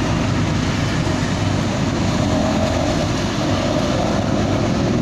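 Steady low rumble of a running motor vehicle, even in level throughout.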